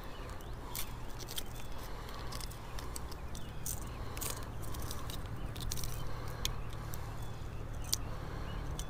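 Scattered light clicks and ticks as a plastic crankbait and its treble hooks are handled against a freshwater mussel's shell, over a steady low rumble.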